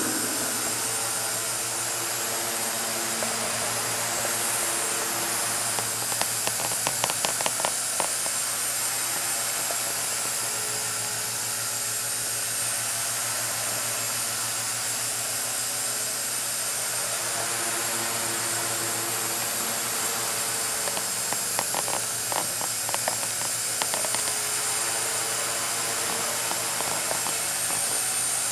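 Walkera 4G6S micro electric RC helicopter flying, its motors and rotors giving a steady whine. Two short rattles of clicks come through, about a quarter of the way in and again about three-quarters through.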